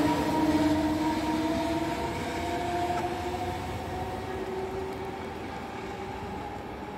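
Electric passenger train, pushed by a Trenord E.464 locomotive, pulling away. The locomotive's electric drive gives a whine of a few steady tones over the rolling rumble, which fades steadily as the train draws off.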